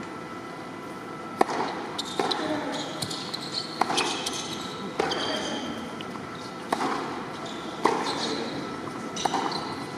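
Tennis rally on a hard court: the ball struck by racquets and bouncing about once a second, with sneakers squeaking between shots, over a low crowd murmur.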